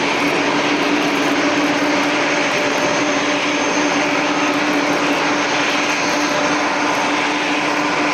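Airbus A330's jet engines running at taxi power: a steady rush with a constant low hum, unchanging throughout.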